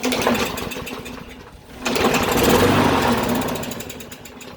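Toro lawn mower's small engine pull-started twice, cranking and sputtering each time and dying away without staying running. This is the sign of old fuel still gelled in the carburetor, which the owner suspects has not quite cleared yet.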